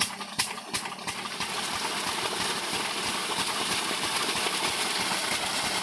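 12 hp single-cylinder diesel pump engine running steadily with an even chug, driving a centrifugal irrigation pump whose outlet gushes water. A few sharp clacks sound in the first second.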